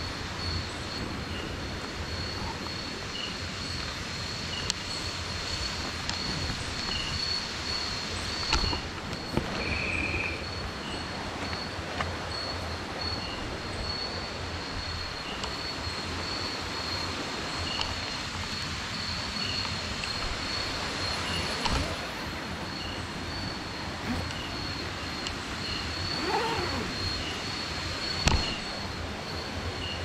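Steady rush of a jungle river and waterfall at night, with a high, continuous insect trill over it and a short high chirp repeating every second or two. A few brief knocks stand out.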